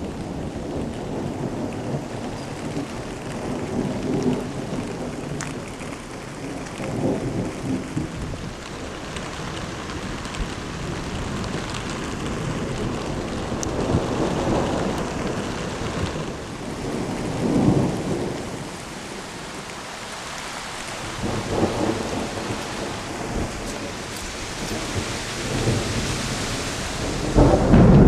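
Thunderstorm: steady rain with rolling thunder that swells and fades several times, and a louder, sharper thunderclap near the end.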